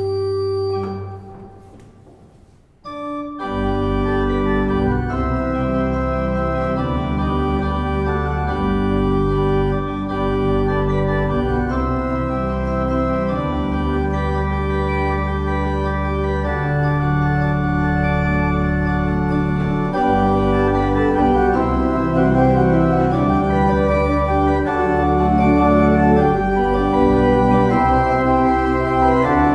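Organ music: a held chord dies away, and after a short pause about three seconds in, sustained organ chords with low bass notes play on.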